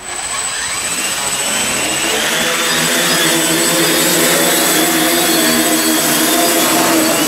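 Waterproof quadcopter's electric motors and propellers whirring at takeoff. The pitch climbs over the first couple of seconds as the motors spin up and the craft lifts off, then holds steady.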